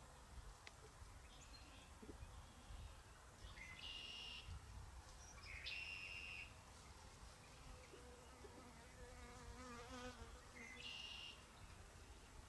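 Faint bird calls in quiet open air. There are three short, buzzy high-pitched calls a couple of seconds apart, and a low wavering trill about two-thirds of the way through.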